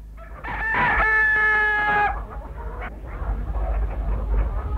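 Rooster crowing: one long, held call from about half a second to two seconds in, then softer scattered chicken clucking over a low rumble. It is a farmyard sound effect in a radio play, marking a morning scene on the farm.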